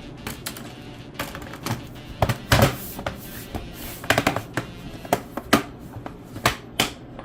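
Irregular sharp clicks and taps from a laptop's plastic case and small tools being handled during reassembly, over background music.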